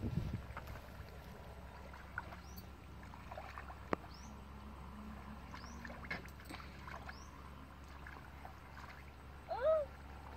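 Bare feet wading through shallow muddy water, with soft sloshing and squelching steps over a low steady rumble and faint high chirps. Near the end a short pitched cry stands out as the loudest sound.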